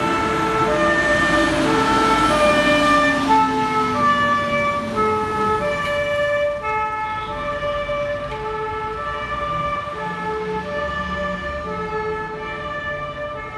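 Madrid fire engine (heavy urban pumper) siren sounding a repeating pattern of stepped tones, loudest a few seconds in and fading as the truck moves away. A lower sliding tone falls over the first few seconds.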